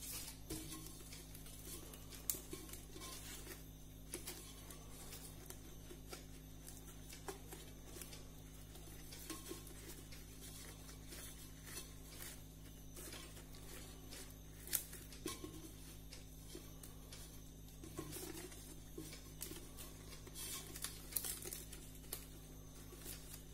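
Faint rustling and crinkling of fresh banana leaves being bunched and tied with a strand of banana fibre, with a few sharp clicks, over a steady low hum.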